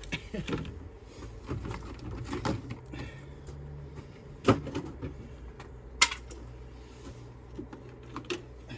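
A few sharp clicks and knocks spread over several seconds, over a low steady hum.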